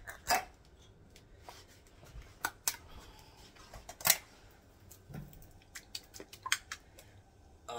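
A metal food can being handled and tipped over a saucepan: scattered light clicks and taps, the loudest about four seconds in.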